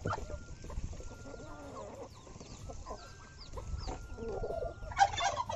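Hens clucking close by, with short high chirps. About five seconds in comes a brief loud splash as a bucket of liquid fermentation solution is poured onto chopped cassava leaves and bran.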